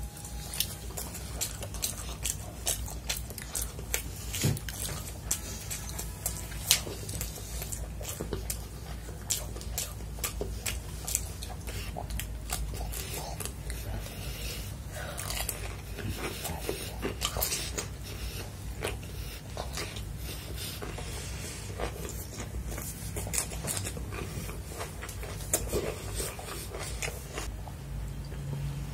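Close-up chewing and wet mouth sounds of eating chicken fried rice and chili chicken by hand, with many small crisp clicks throughout. Around the middle come crunchy bites of raw cucumber slices.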